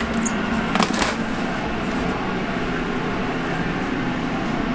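Steady hum and rush of a pizzeria kitchen's exhaust hood and deck oven running, with a short scrape about a second in as a wooden pizza peel slides a pizza out across the oven deck.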